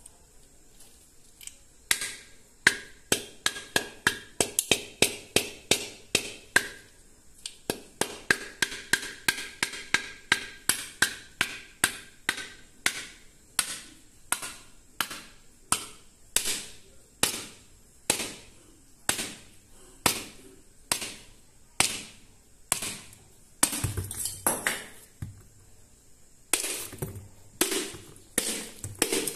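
Steel claw hammer tapping an unglazed terracotta clay money bank over and over, each blow a sharp knock with a short ringing from the fired clay. Near the end the clay cracks and pieces break away from the pot.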